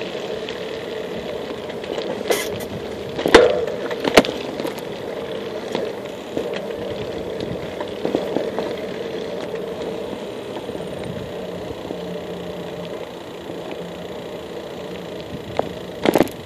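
Bicycle rolling along a concrete path: a steady tyre hum and rattle, with occasional sharp knocks as the wheels cross the path's joints. The loudest knocks come about three to four seconds in, and a quick cluster comes near the end.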